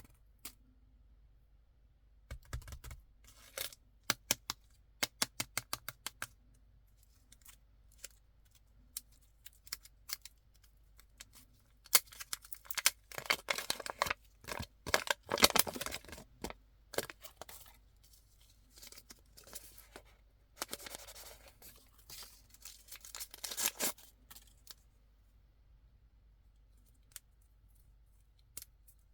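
Candy packaging being handled and opened: a series of sharp taps and clicks, then two longer stretches of crinkling, tearing plastic wrapper.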